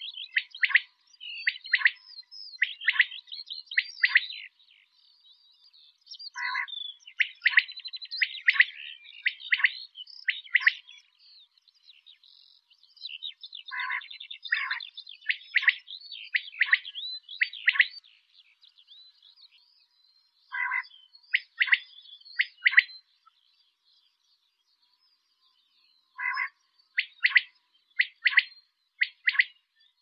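Domestic quail (Coturnix coturnix) calling in repeated bouts: each bout opens with a lower note followed by a quick run of short, sharp, high-pitched calls, with pauses of a few seconds between bouts.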